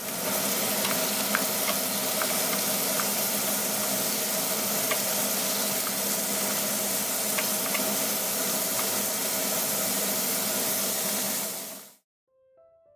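Pork pieces searing in hot olive oil in a frying pan, a steady sizzle with a few faint clicks. The sizzle cuts off suddenly near the end, and soft piano music comes in.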